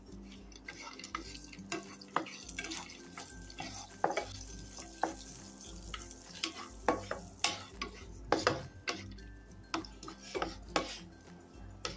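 Cashews roasting in ghee in a pan, stirred with irregular clicks and scrapes of the utensil against the pan, more frequent in the second half, over a light sizzle of the hot ghee.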